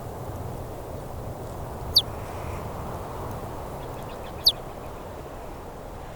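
Steady low rushing of brown noise, with two brief, sharp, high chirps that slide downward, about two and a half seconds apart.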